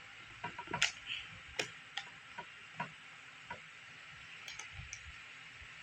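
Light clicks and taps at irregular intervals, about eight in all, from a spoon and cup being handled, over a faint steady hiss.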